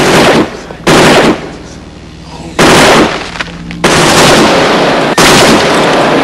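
Bursts of very loud, distorted gunfire, five in all, each half a second to a second long and tailing off before the next.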